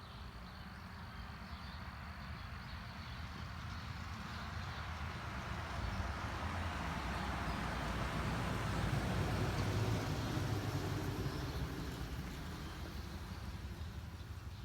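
A road vehicle passing by: engine rumble and tyre hiss swell over several seconds, are loudest about ten seconds in, then fade away.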